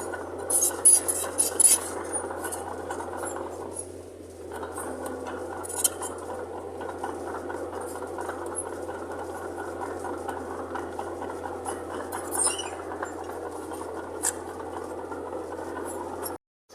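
Mitsubishi BD2J bulldozer at work: a steady engine hum with metallic clinks and clanks, several together about a second in and single ones later.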